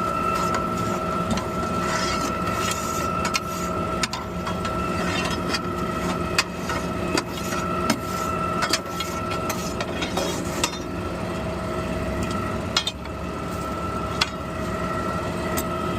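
Garbage truck's hydraulic packer running through a hopper clean-out: a steady whine from the engine and hydraulic pump, with scattered clicks and knocks.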